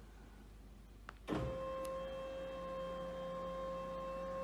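Electric lift motor of a bar cabinet whirring with a steady pitched hum as it raises the hidden top shelf unit, starting a little over a second in after a short click.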